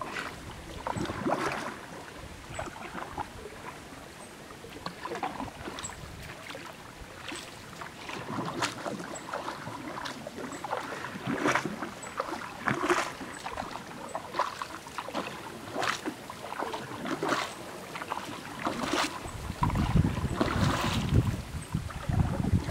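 Paddle strokes dipping and splashing beside a patched wooden dugout canoe, about one stroke every one and a half seconds. Wind buffets the microphone near the end.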